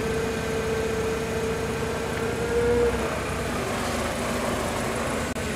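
Forklift engine idling steadily, with a steady higher tone over it for about the first three seconds.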